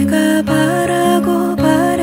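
Slow acoustic ballad: a woman singing held, gliding notes over acoustic guitar.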